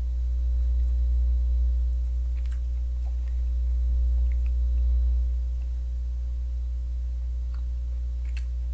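Steady low electrical mains hum, with a few faint light clicks scattered through it.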